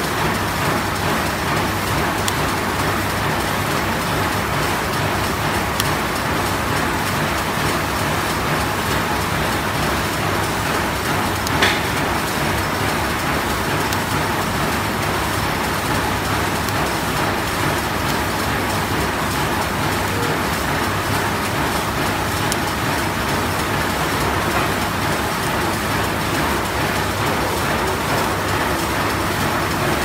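Steady mechanical din of a running automatic prong snap button machine, with one sharp click about twelve seconds in.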